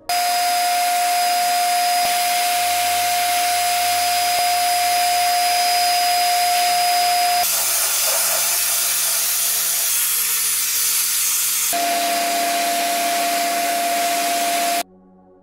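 Sandblast cabinet blasting white aluminium oxide grit onto a metal kettle: a loud, steady hiss of air and abrasive, with a steady whine under it in the first and last parts. It starts suddenly, changes sharply twice, and cuts off near the end.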